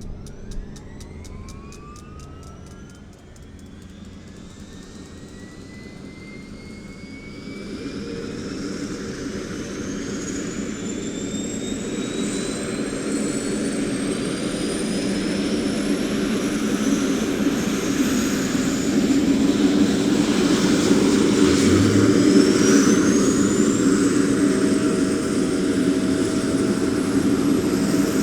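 Helicopter turbine engine starting up: a whine rising steadily in pitch throughout, while the low beat of the rotor builds and grows louder from about seven seconds in. A fast ticking in the first couple of seconds, and a second whine sweeping upward near the end.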